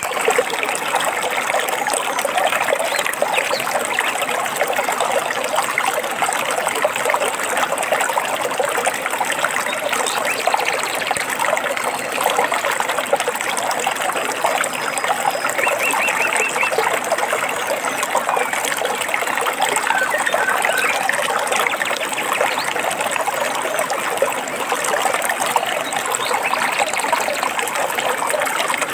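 Stream water trickling and babbling steadily, with a few brief, faint bird notes about halfway through.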